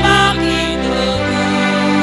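Congregation singing a hymn to sustained chords from a keyboard accompaniment, the bass note changing about once a second.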